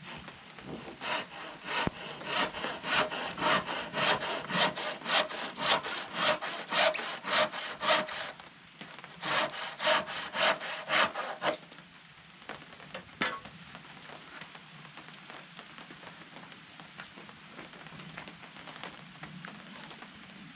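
Handsaw cutting through a wooden board in quick, even back-and-forth strokes, about three a second. The sawing pauses for a moment about eight seconds in, runs again for a couple of seconds, and stops about halfway through.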